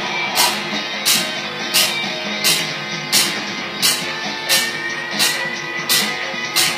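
Guitar solo played over a backing track with a steady drum beat, a hit roughly every 0.7 seconds.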